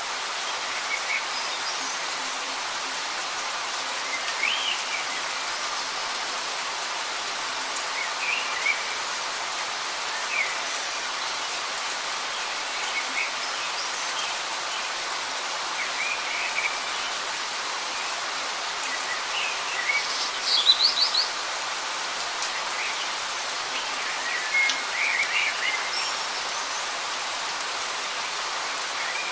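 Light rain falling steadily, with short bird chirps scattered through it. The loudest is a quick run of chirps about two-thirds of the way through.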